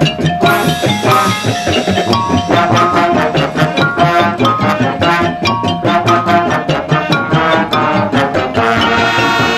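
Marching band playing: a busy, percussion-driven passage with drums and mallet percussion under brass, the brass moving onto held chords near the end.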